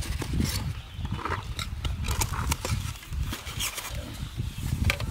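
Metal spoons and ladles scraping and clicking against a large aluminium tray and foam food boxes as rice and curry are served out, over an uneven low rumble of wind on the microphone.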